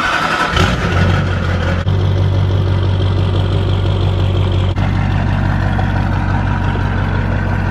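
Chevrolet pickup's Duramax V8 turbo-diesel engine idling steadily, coming in about half a second in.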